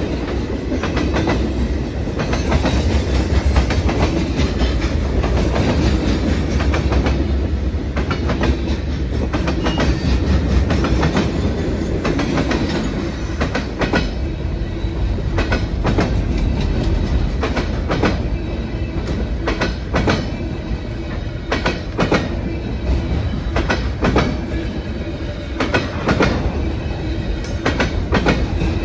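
A train running on the rails: a steady, loud rumble with many sharp clicks from the wheels, which come thicker in the second half.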